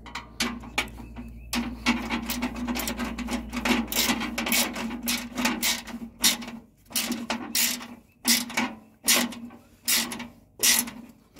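Hand ratchet wrench tightening a bolt on a mower deck ring, its pawl clicking in fast runs, then in separate back-strokes about one and a half a second from about six seconds in.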